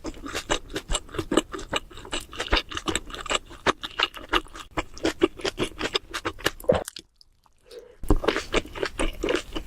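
Close-miked chewing of a sub sandwich, with many irregular wet smacks and crunches several times a second. The chewing stops for about a second, around seven seconds in, then starts again.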